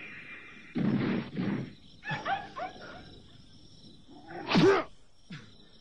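Cartoon wolves snarling and yelping in a fight: a rough snarl about a second in, a few short yelps around two seconds, and a loud yelp that rises and falls in pitch about four and a half seconds in.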